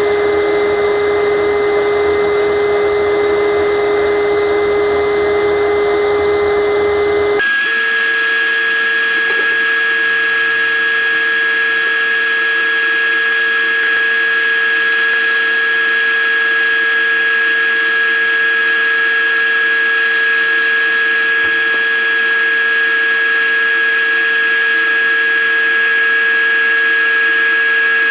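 Sandblast cabinet gun blasting paint off a pressed-steel toy loader part: a loud, steady hiss of air and grit with a constant whistle in it. The sound shifts abruptly in pitch about seven seconds in.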